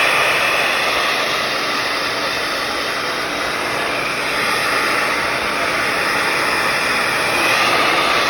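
Hair dryer running steadily, an even rush of blown air that dips slightly in the middle and grows a little louder again near the end.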